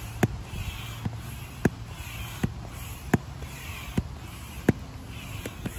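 Hand pump inflating an inflatable kayak's drop-stitch floor, which is pumped to 6 PSI: a sharp click with each pump stroke, about one every three-quarters of a second, with a soft rush of air between some of the strokes.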